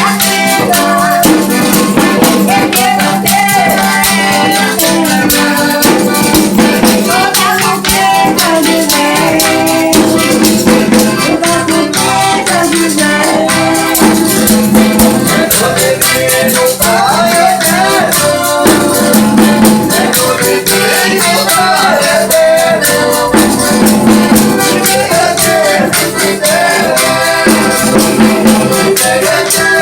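Folia do Divino devotional folk music: voices singing over a fast, steady beat of shaken rattles and tambourine.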